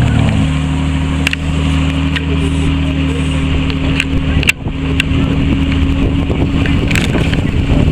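Car engine idling steadily, with a short dip in level about halfway through and a few sharp clicks.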